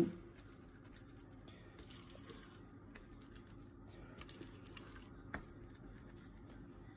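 Faint, soft scraping and squishing of a spatula pushing thick cookie dough out of a mixing bowl into a cast-iron pan, with a few light knocks of the utensil against bowl or pan, the sharpest a little past five seconds in.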